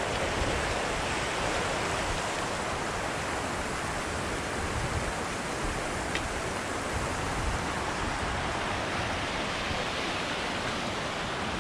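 Steady rushing noise with an uneven low rumble, and a faint brief high tone about six seconds in.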